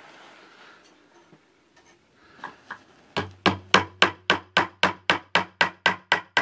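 Objective bell of a U.S. Optics SVS 1-6X rifle scope used as a hammer, driving a nail into a wooden board. Two light taps come first, then from about three seconds in a quick, even run of about a dozen blows, about four a second.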